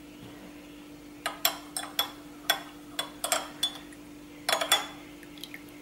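Metal spoon clinking against a cup in about a dozen quick, ringing taps, starting about a second in with a last cluster near the end, as honey is stirred into the drink.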